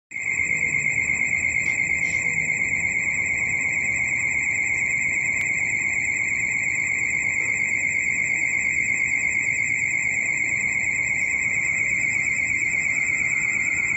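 Station platform train-approach warning alarm sounding continuously: a loud, high-pitched tone pulsing rapidly, warning that a train is coming through the station on the near track. A low, steady rumble runs beneath it.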